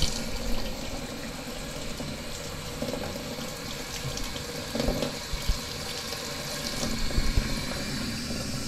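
Kitchen mixer tap running a steady stream into a stainless steel sink bowl, splashing and draining down the plughole, while the hot water is left to come through. A few low knocks sound about halfway through and again near the end.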